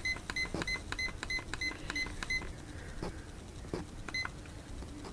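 La Crosse Technology digital alarm clock beeping at each button press as its date setting is stepped through: a quick run of about ten short, high beeps in the first two and a half seconds, then a single beep a little after four seconds. Soft clicks of the plastic buttons come between the beeps.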